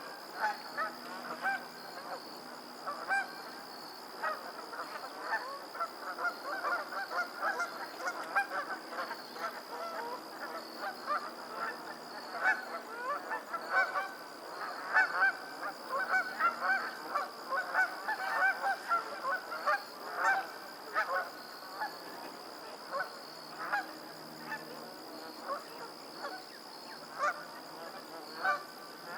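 A flock of geese honking continuously, many short calls overlapping at once, with a steady high-pitched drone underneath.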